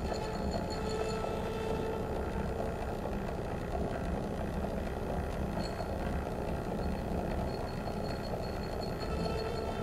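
Steady, dense low rumble like an idling engine from live experimental electronics and amplified sound objects, with faint thin high tones above it.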